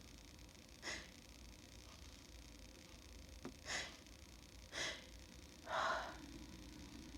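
A woman sniffing four times, short sharp intakes through the nose, the last one longer and heavier. Her nose is irritated from snuffing chhinkni sneezing powder.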